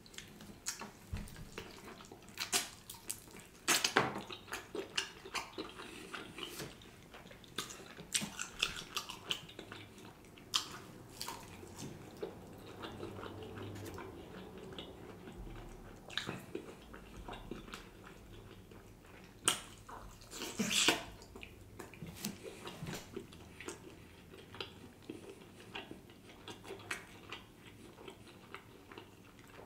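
Mouth sounds of eating barbecued meat off the bone by hand: wet chewing, smacking and sucking, with irregular sharp clicks, a few louder smacks about 4 seconds in and again around 20 seconds in.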